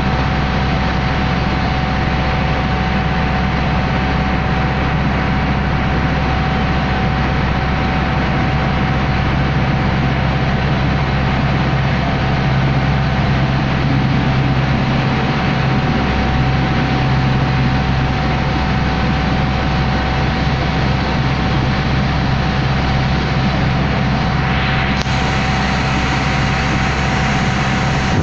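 Water taxi's engine running steadily underway, heard on board as a loud, even drone with a thin constant whine above it.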